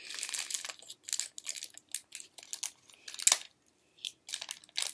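Small plastic toy wrapper crinkling and tearing as fingers pick it open: a run of irregular crackles with a sharper snap about three seconds in.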